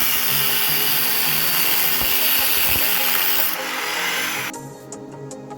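Grinder grinding on the steel of a truck axle: a steady, loud, rough hiss over the motor's hum, which stops about four and a half seconds in.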